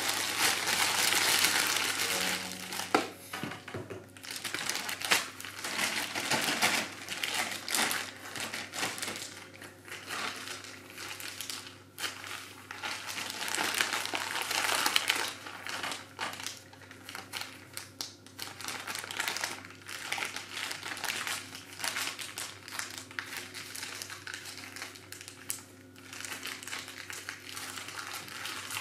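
Plastic zip-top bag crinkling and rustling in irregular bursts as hands knead and press a block of raw beef inside it.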